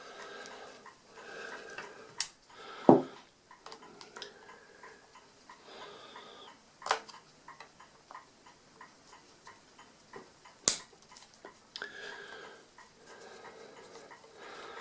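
Screwdriver working out the steel screws that hold the control register of an Addo Multo Model 3 mechanical calculator: faint, rapid metallic ticking, broken by four sharp clicks.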